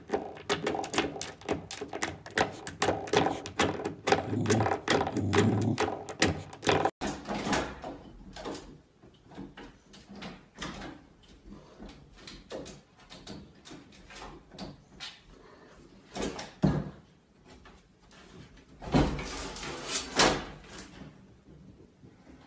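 A dog batting a spring doorstop with its mouth, a fast run of twanging boings. Then a cat hanging on a lever door handle, the latch clicking and the door knocking as it opens.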